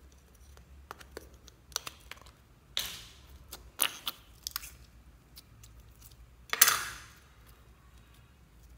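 A small plastic slime cup and its clear lid being handled and pried open, giving scattered plastic clicks and crackles. The loudest is a longer crunchy crackle about two-thirds of the way through.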